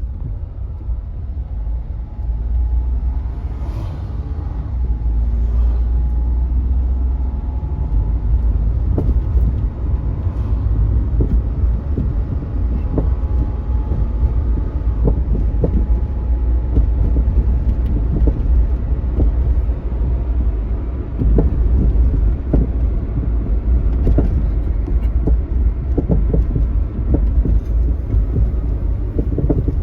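Honda Vamos on the move, with low road rumble and repeated light, irregular knocks from the front: the 'koto-koto' noise of something knocking against the floor while driving.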